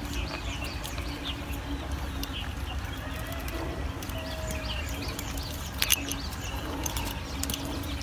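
Small birds chirping now and then over a steady low rumble and a faint steady hum, with a couple of sharp clicks about six seconds in.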